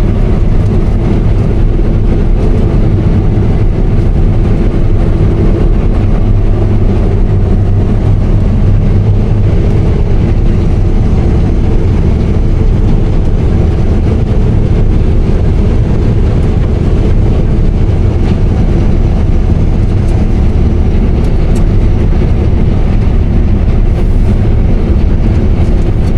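Case IH 8120 combine running, a loud steady low drone of its engine and threshing drives, heard from the operator's cab.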